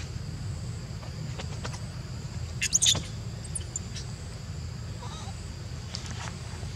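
A steady low rumble, with a brief cluster of sharp, high-pitched clicks about three seconds in, the loudest moment.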